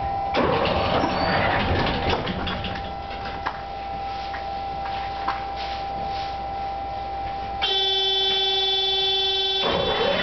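Tatra T5C5 tram running, heard from inside the car: steady rolling noise with a constant high whine and occasional clicks of the wheels over the rails. About eight seconds in, a steady buzzing signal tone sounds for about two seconds and then cuts off.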